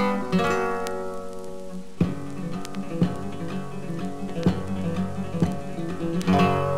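Solo acoustic guitar playing, with chords struck every second or so and their notes ringing on between strokes.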